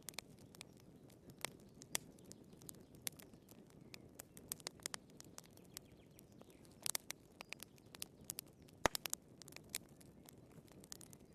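Burning firewood in a fireplace crackling: irregular sharp pops and snaps over a soft low hiss of the flames, with a quick cluster of pops about seven seconds in and the loudest snap just before nine seconds.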